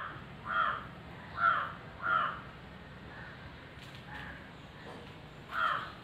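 A crow cawing: three loud caws in the first two and a half seconds, a couple of fainter ones in the middle, and another loud caw near the end.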